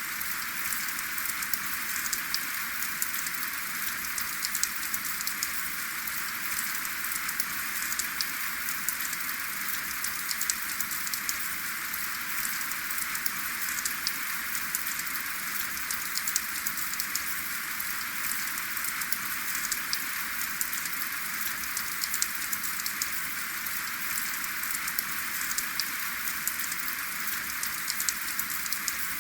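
Steady rain without thunder, a constant patter with many individual drops ticking sharply.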